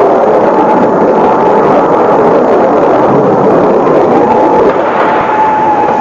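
Sustained roar of a Patriot air-defence missile launch, a loud steady rushing noise, with the air-raid siren's steady tone still sounding faintly beneath it.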